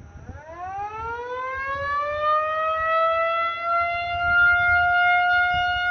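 Kaw Dam's warning siren winding up: a wail that rises in pitch and grows louder over about three seconds, then holds one steady pitch. It sounds when the dam raises its water release.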